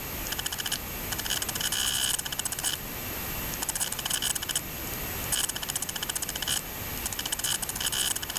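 Rapid mechanical clicking that comes in stretches of about a second, with short gaps between them, over a steady hiss.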